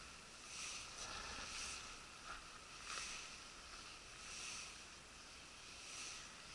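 Faint whirring of a Ryobi Zauber CF 1000 spinning reel being cranked to retrieve a lure, swelling and fading every second or so.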